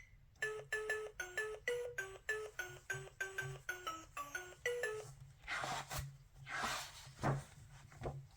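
Tinny electronic jingle from a children's sound book's sound chip: a quick tune of about eighteen short, beeping notes, like a ringtone. Then, a little after halfway through, come three or four hissing whooshes.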